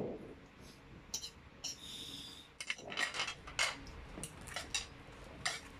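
Metal cutlery clinking and scraping on ceramic dinner plates as food is cut and picked up, in a run of short sharp clicks. A drawn-out ringing scrape of a knife across a plate comes about two seconds in.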